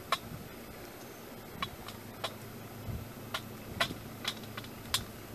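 A crow pecking food out of a metal pan: about nine sharp, irregular clicks of beak and food against the pan.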